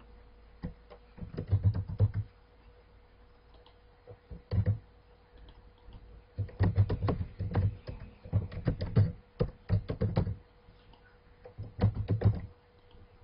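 Computer keyboard typing in short bursts of keystrokes, with pauses between them. A faint steady hum runs underneath.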